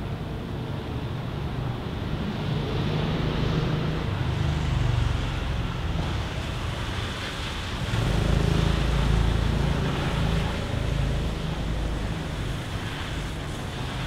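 Distant city road traffic: a steady wash of noise with a low rumble that swells and fades twice.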